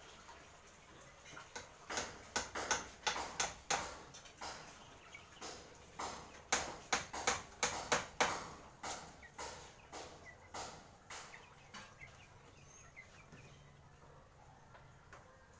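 Hammer blows on a bamboo and wood frame: two runs of quick, sharp strikes, roughly three a second, the second run the loudest, then a few scattered lighter knocks.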